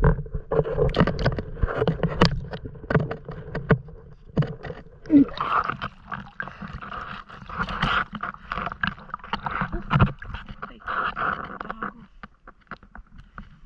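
Water sounds of a swimmer: muffled clicks, knocks and low rumble heard underwater, then about five seconds in, water splashing and sloshing at the surface.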